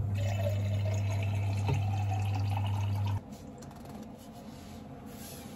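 Water from a push-button drinking-water tap running into an insulated bottle for about three seconds, with a steady low hum while the tap runs. The pitch of the filling rises as the bottle fills, then the flow and hum stop abruptly.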